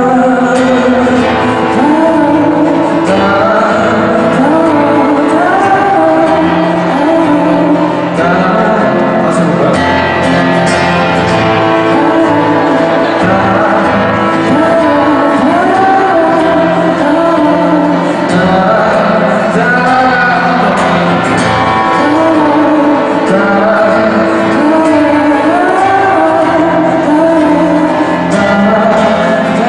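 Live music with a male singer singing over the accompaniment.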